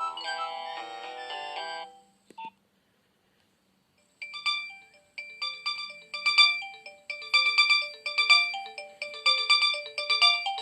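Nokia 2600 phone playing its preloaded electronic ringtones. One melody stops about two seconds in, a short click follows, and after about two seconds of silence the next ringtone starts: a rhythmic tune of short notes that die away quickly.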